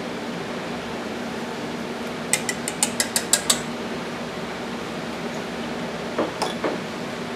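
A steel whisk tapped quickly against the rim of a stainless steel mixing bowl of spätzle batter, about eight sharp metallic clicks in just over a second. A few duller knocks follow near the end as the bowl is handled, over a steady hiss.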